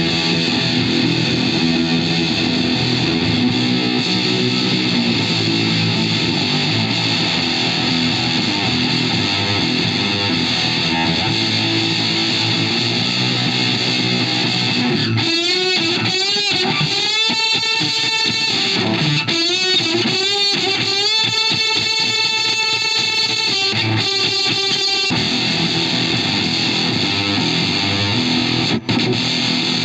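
Electric guitar played through a reproduction Fender Blender octave-fuzz pedal, giving a thick, heavily distorted tone. Through the middle of the passage the notes bend and glide up and down before the dense fuzz returns, with a brief break near the end.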